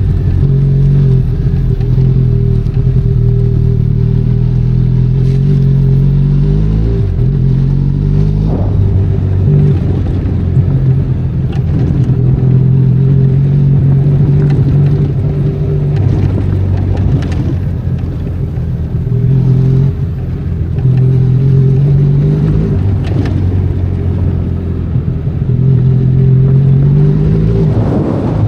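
Benelli Leoncino 500 Trail's parallel-twin engine running on an off-road trail under changing throttle, its pitch falling about six seconds in and rising again near the end. There are occasional knocks and clatter from the bike over rough ground.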